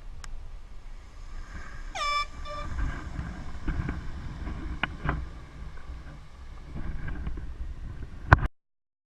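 Two short blasts of a handheld air horn about two seconds in: a single bright tone that dips in pitch as it starts, then a briefer second toot half a second later. A low rumble runs underneath, with a few sharp clicks later on, and the sound cuts off abruptly near the end.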